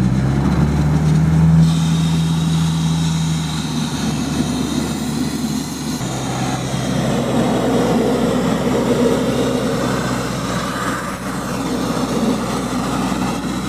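Sandblaster blasting: a loud, steady hiss of air and abrasive, with a steady low engine hum underneath.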